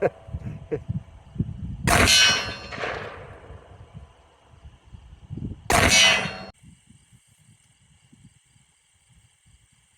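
Bullets striking a steel target: two sharp metallic clangs about four seconds apart, each ringing on briefly.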